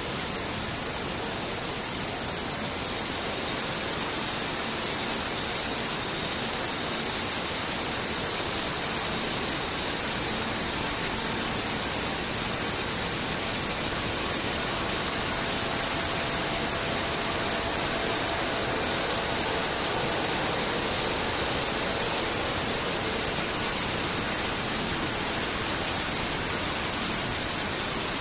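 YJ-150CNC automatic circular-saw tube-cutting machine running with a steady, even hiss.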